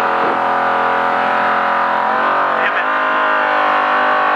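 Trophy truck's race engine heard from inside the cab, holding a steady note, with a brief dip in pitch about two and a half seconds in.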